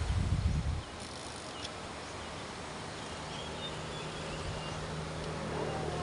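Outdoor ambience with a low rumble of wind on the microphone in the first second and faint insect or bird chirps. From about halfway through, a motor vehicle's engine hums steadily and grows a little louder.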